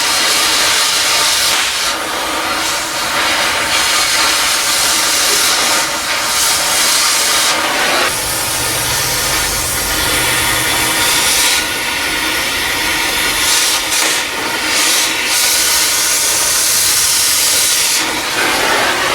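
Gas torch burning with a steady, loud hiss on rusted U-bolt hardware. The sound shifts about eight seconds in, and a low rumble joins for a few seconds.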